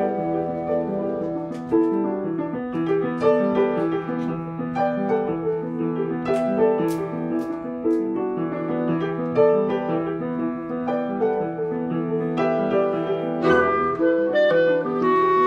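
Old Bogs & Voigt upright piano playing a quick gigue in many short notes, with clarinet and other instruments of a small chamber ensemble playing along.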